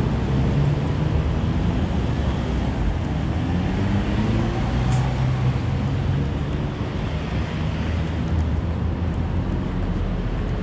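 Road traffic: vehicle engines running under a steady rush of road noise, the engine pitch slowly rising and falling.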